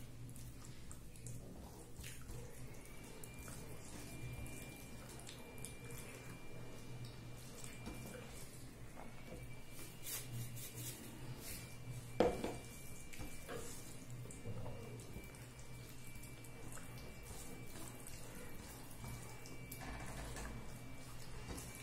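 Fingers mixing rice with cauliflower-potato curry and dal on a plate, and eating: faint wet squishing and soft clicks. A salt shaker is shaken over the food about ten seconds in, followed by a single sharp knock.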